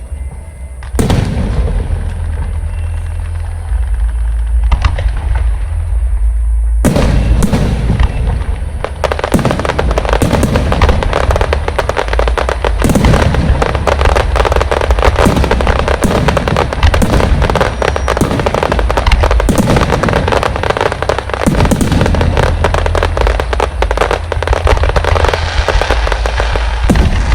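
Fireworks going off: a few separate loud bangs, then from about nine seconds in a dense, continuous crackle of rapid bangs, over a heavy low rumble.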